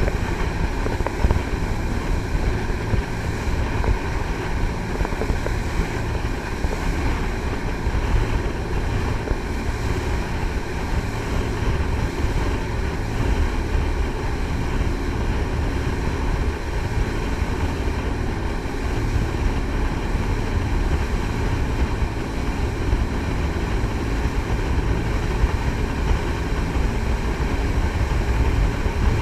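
Triple-diesel jet boat running steadily under way: a constant engine drone with rushing water and wind on the microphone.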